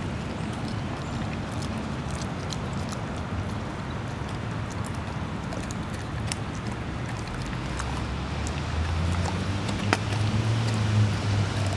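A steady low motor hum that grows louder about eight seconds in, with scattered small clicks and smacks of dogs licking their lips after eating.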